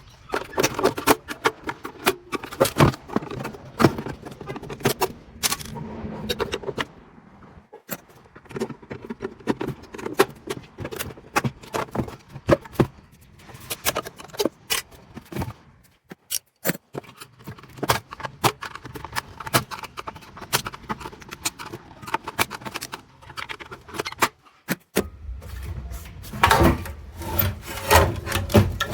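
Irregular metallic clinks, taps and scrapes of hand tools working fittings and brackets off the copper heat exchanger of a Rheem continuous-flow gas water heater. A low rumble joins in near the end.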